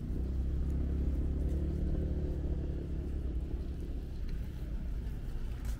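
A motor vehicle's engine running close by on the street, with a low rumble that is loudest in the first few seconds and then eases off as it passes.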